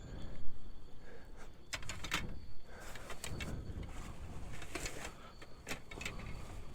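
Scattered light clicks, knocks and rustling as metal paramotor cage hoops and parts are handled and fitted together, over a steady low rumble.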